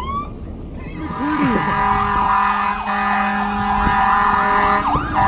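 Emergency vehicle sirens: a short rising whoop, then from about a second in several sirens wailing and yelping together over a steady horn-like tone.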